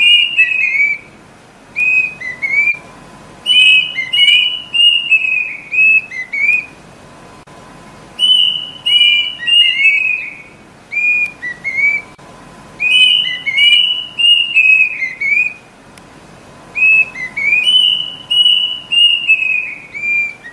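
Kedasih (Cacomantis cuckoo) song: repeated phrases of clear, high whistled notes that step downward in pitch, a new phrase every three to four seconds.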